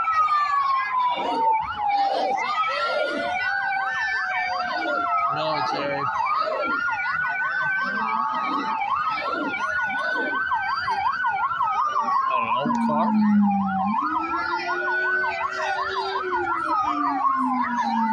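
Emergency-vehicle sirens, switching between a slow wail and a rapid yelp. A second, lower-pitched siren rises and falls slowly in the second half.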